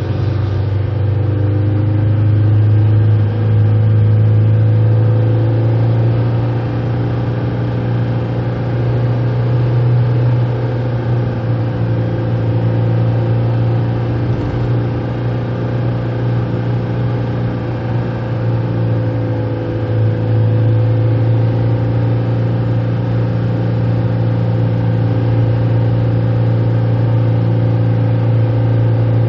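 Steady engine and road noise heard from inside a moving car, with a strong low drone and the engine note rising and falling slightly with speed.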